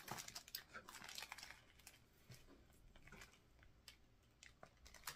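Faint crinkling and rustling of loose pipe tobacco and its bag being handled while packing a corncob pipe bowl, fading after about a second and a half into a few scattered small ticks.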